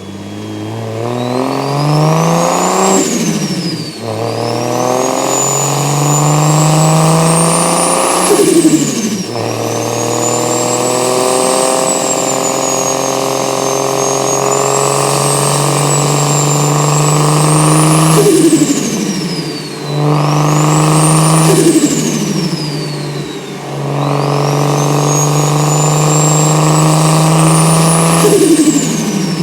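Single-turbo, straight-piped BMW 335i's N54 straight-six accelerating hard through the gears. The exhaust note climbs with the revs while a high turbo whistle rises with boost, and both drop away at each of about five gear changes.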